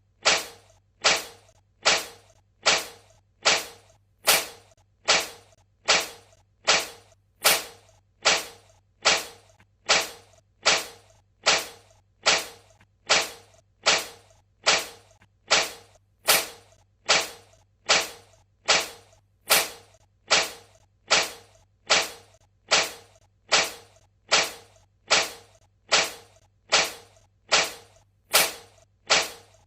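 A cat sneezing over and over in short, sharp sneezes at a steady even pace, about six every five seconds.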